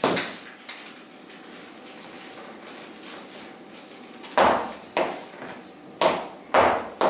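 A few seconds of quiet room tone, then a run of sharp knocks, about five, irregularly spaced, each with a short decay.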